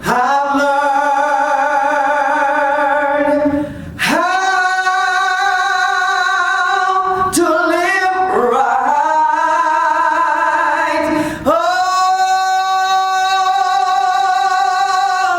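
A woman's voice singing a slow gospel song in long, drawn-out held notes with vibrato, with short breaks between phrases about four, seven and eleven seconds in.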